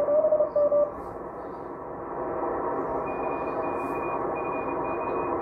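Ham receiver's speaker sounding a Morse code (CW) signal as a keyed steady tone, which cuts off about a second in as the dial is tuned away. Hiss of 80-metre band noise follows and swells, and from about three seconds in a faint, higher-pitched Morse signal keys on and off.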